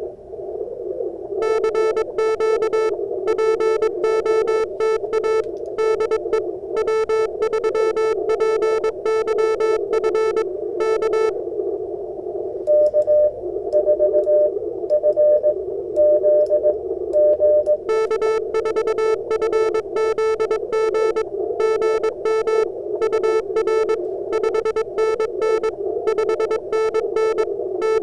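Morse code sent on a BaMakey TP-III CW paddle, heard as a low sidetone keyed on and off in dots and dashes over a steady band of hiss. For about five seconds in the middle, a fainter, higher Morse tone keys instead.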